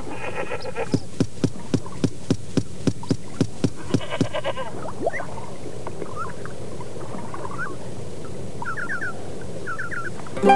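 A run of evenly spaced knocks, about three a second, lasting a few seconds, over a steady background hiss. Short bird chirps follow later.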